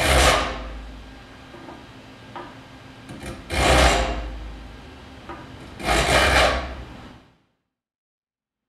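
A hand saw file pushed across the steel teeth of a western rip saw, three slow rasping strokes a few seconds apart. The teeth are being filed to sharpen the saw after jointing, working each tooth down until its jointed flat is nearly gone.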